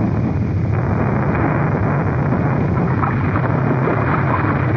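Animated-film sound effect of an erupting volcano and flowing lava: a steady, dense, low rumble, heard through an old soundtrack with no high treble.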